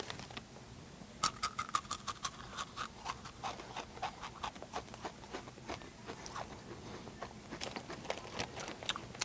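Takis rolled tortilla chips being crunched and chewed loudly with the mouth open, heard as a quick, irregular run of crisp cracks. The crinkle of the chip bag mixes in as a hand reaches into it.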